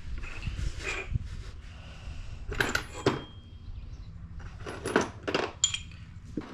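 Small metal brake parts clinking and rattling as they are handled, with a few sharp clicks that ring briefly, about a third of the way in and again past the middle.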